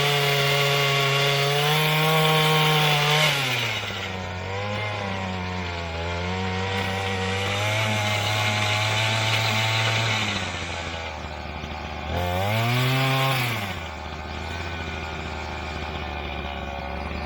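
Small two-stroke engine of an Earthquake MC33 33cc mini tiller running at high revs, then dropping to a lower speed about three and a half seconds in. Near the end it revs up briefly once and falls back to a low idle.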